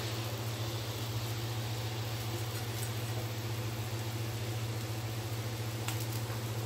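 Steady low hum with a faint even hiss as jaggery syrup heats in a pan over a gas flame, just starting to bubble at the edges.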